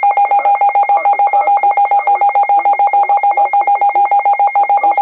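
Loud electronic alert signal from an emergency weather alert broadcast: a steady rapid pulsing of two tones, one low and one high, about ten pulses a second.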